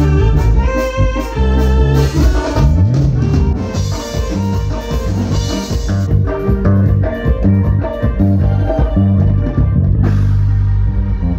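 Live band playing quebradita through a PA: an electronic keyboard with an organ tone over electric bass and a drum kit.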